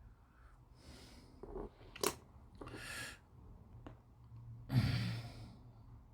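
Breathing close to the microphone: three soft, noisy exhalations, the last and loudest near the end. There is one sharp click about two seconds in, over a low steady hum.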